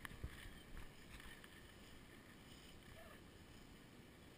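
Near silence: a faint, steady low rumble of wind on the microphone, with a few soft clicks in the first second or so.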